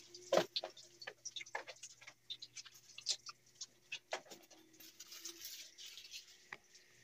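Scattered light taps and clicks with a soft splash of water on a wet tiled floor, as a dog is bathed with a hose.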